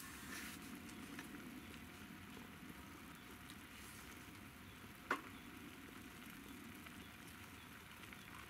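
Wood fire burning faintly in a fire pit under a pot, with one sharp click about five seconds in.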